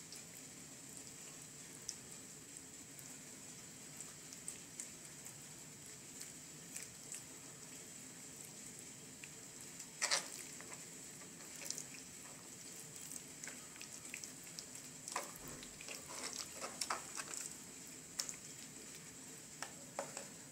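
Hands rubbing mayonnaise into raw chicken breast fillets on a plastic cutting board: faint wet squishing and crackling with light taps, and a louder knock about ten seconds in.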